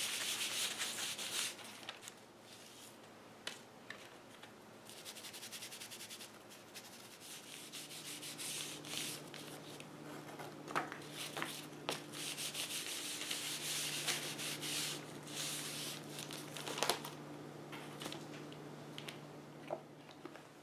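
Resolene finish being wiped onto dyed leather pieces by hand: an applicator rubbing on leather in spells of scrubbing, with a few light knocks. A steady low hum comes in about a third of the way through.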